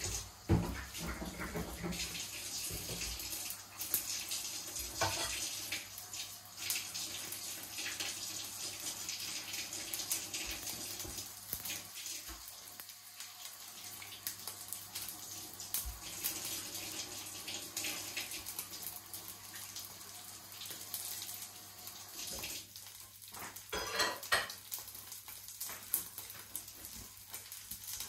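Kitchen tap running into a sink, a steady splashing hiss, with a few knocks now and then.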